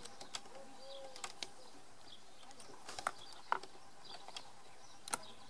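Quiet background with a few faint, scattered clicks and taps and one soft dove coo about half a second in.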